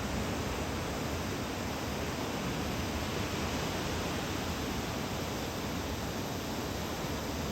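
Ocean surf breaking at a beach under a typhoon swell, heard as a steady, even rushing noise with no distinct wave crashes standing out.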